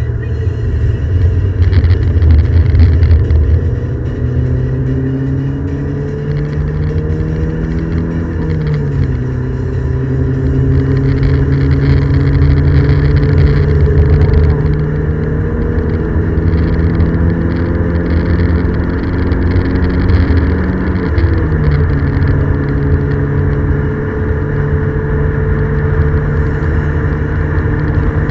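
Ford Escort XR3i's 1.8-litre 16-valve four-cylinder engine heard from inside the cabin under hard acceleration. The engine note rises steadily through each gear and drops sharply at upshifts, one about eight seconds in and another about three quarters of the way through.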